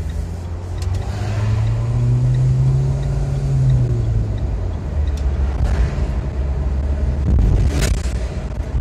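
Car engine and road noise heard from inside the cabin, a steady low rumble. The engine note rises as the car accelerates and eases off about four seconds in. A short sharp noise comes near the end.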